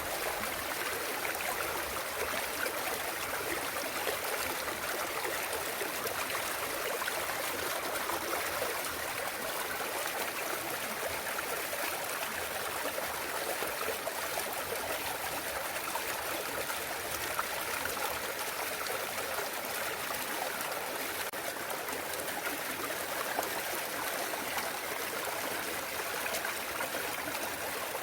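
Clear mountain stream running and trickling over rocks, a steady splashing and gurgling flow.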